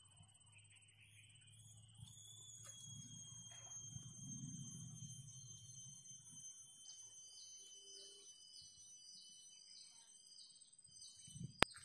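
Steady high-pitched droning of insects, joined in the second half by a pulsing call of about two a second. A single sharp click near the end.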